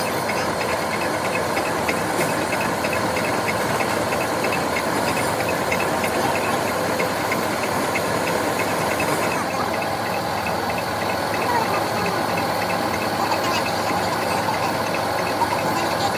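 Workshop machinery running steadily with a hiss and a rapid, even ticking; the highest part of the hiss drops away about nine seconds in.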